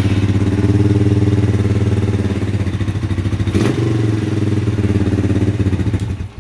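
Single-cylinder motorcycle engine running at an idle that is a little high, steady and even, with a brief change in revs about three and a half seconds in; it is switched off near the end. The exhaust leak at the header crush washer has been fixed.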